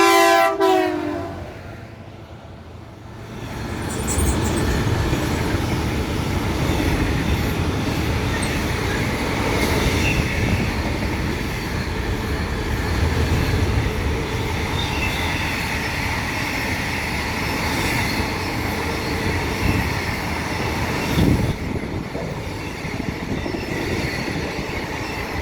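The end of a diesel locomotive's horn blast, a chord of several tones that drops in pitch as it passes and cuts off within the first second. Then, after a brief lull, a long freight train's wagons roll past with steady rumbling and clattering wheel-on-rail noise and one louder knock near the end.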